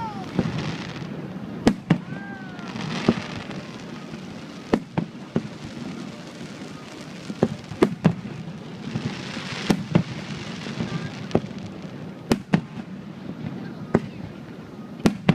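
Aerial fireworks going off in a continuing series of sharp bangs, with spells of crackling about three seconds in and again around nine to ten seconds in.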